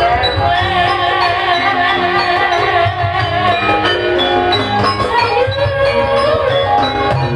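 Javanese gamelan ensemble playing: sustained ringing metallophone notes over a steady low drum and gong beat, with a wavering melody line on top.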